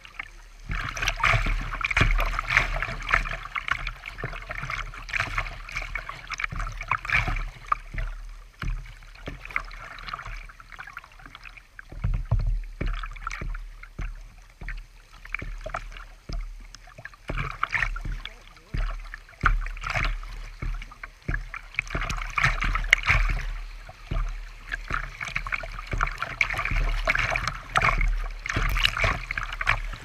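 Creek water rushing and splashing around a kayak's bow as it runs a fast riffle, with paddle splashes, the splashing swelling and easing in irregular surges.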